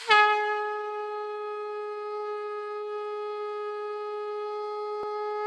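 Conch shell (shankh) blown in one long, steady note. It starts with a sharp attack and holds an even pitch throughout.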